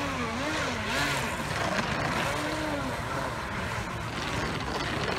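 Pro Boat Recoil radio-controlled speedboats running fast on the water: the whine of their brushless electric motors wavers up and down in pitch over a steady hiss of spray.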